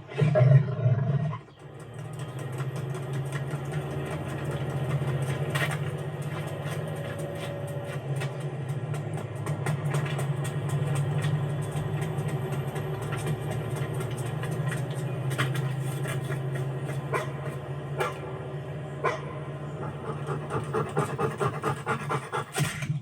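A dog panting over a steady low engine drone, with scattered sharp clicks and knocks; there is a louder burst about a second in.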